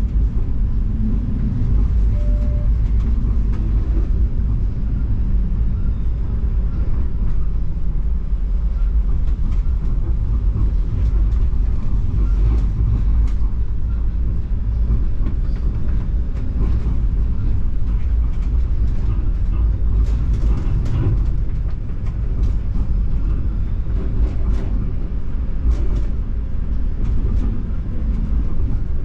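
Toronto TTC streetcar running along its tracks, heard from inside the car: a steady low rumble of wheels on rails and running gear, with scattered short knocks and rattles.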